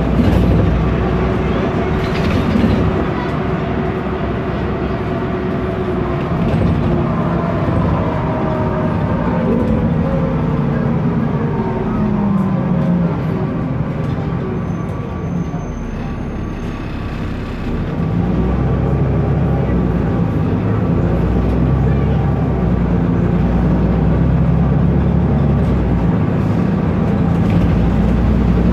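Cabin sound of a BMC Procity city bus under way, its Cummins ISB turbo diesel and automatic gearbox running with a steady low drone. The engine note falls away over the middle, goes quieter for a couple of seconds, then rises and grows louder again about two-thirds of the way through.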